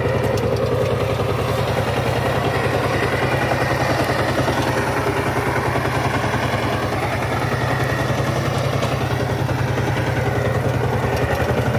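Single-cylinder diesel engine of a two-wheel power tiller running steadily under load, with an even, fast pulsing beat, as its rotary tines churn through flooded paddy mud.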